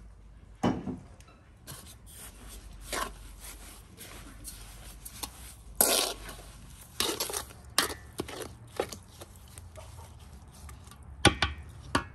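Wooden spoon stirring grated fruit and sugar in a large metal pan: irregular scraping with knocks of the spoon against the pan, the loudest about six seconds in and near the end.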